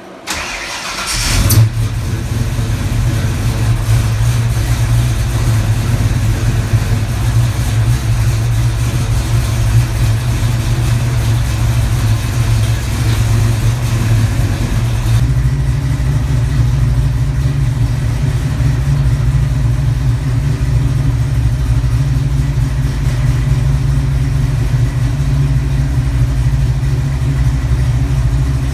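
A freshly rebuilt 408 Clevor V8 (Windsor-based stroker with Cleveland heads, new rings and bearings) cranked on the starter and firing within about a second and a half, then running steadily on a fixed 20 degrees of ignition timing. About halfway through, its sound changes and settles a little lower.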